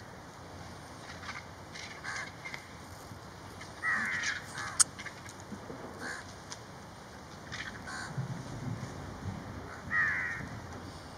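A flock of vultures squabbling over a carcass: harsh, rasping calls, loudest about four seconds in and again near the end, with scattered shorter calls and one sharp click just before the five-second mark.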